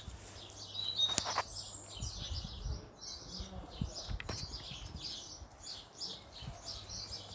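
Small birds chirping and singing in quick, repeated high notes throughout, with a sharp click about a second in and a few low rumbles.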